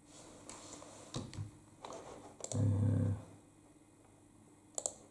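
Faint computer mouse clicks as the slideshow is worked, with two sharp clicks near the end, and a brief low hum about halfway through.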